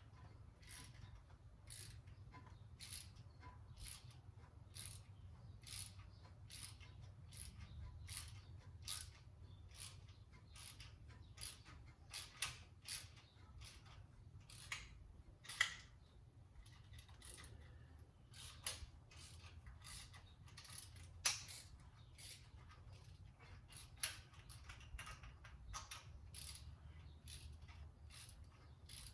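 Repeated short metal clicks, roughly one a second and unevenly spaced, as a heli-coil insert is wound by its installation tool into the threaded bolt hole of a small-block Chevy crankshaft.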